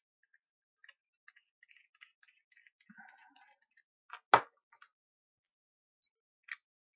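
Faint small clicks and scratches of a small screwdriver working a tiny screw in a wind-up torch's plastic LED circuit-board housing, then one sharp, much louder clack a little over four seconds in, and a few light clicks as the small plastic parts are handled.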